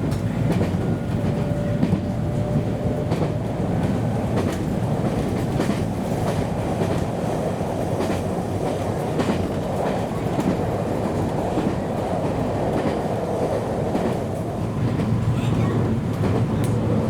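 Train running along the track: a steady rumble of wheels on rail, with scattered clicks as the wheels pass over rail joints.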